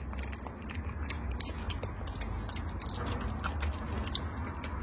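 A small poodle chewing food, heard as a run of quick soft clicks and crunches over a low steady hum.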